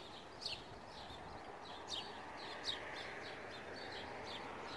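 Small birds chirping, a string of short, high, falling chirps roughly every half second, over a steady rushing background of wind or surf.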